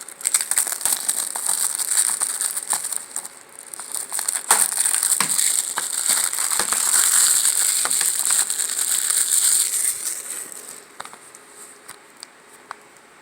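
Plastic wrapping on a Blu-ray case crinkling and tearing as it is pulled off, with many small clicks. It is loudest through the middle and thins to a few faint clicks over the last few seconds.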